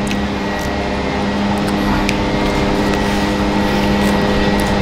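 Steady machine hum holding several steady tones, with scattered short crinkles of a paper food wrapper being handled.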